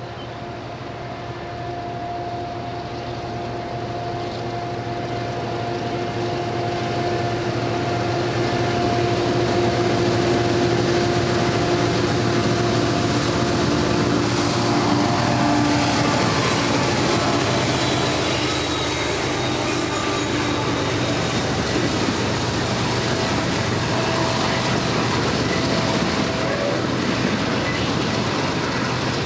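Diesel-hauled freight train approaching and passing: the GE locomotives' steady hum grows louder and drops in pitch as they go by about halfway through. Then the freight cars follow, with their wheels clattering over the rails and a thin high wheel squeal near the end.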